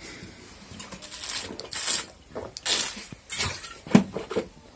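Clatter of objects being handled: several short, separate rattling and clinking noises over a few seconds.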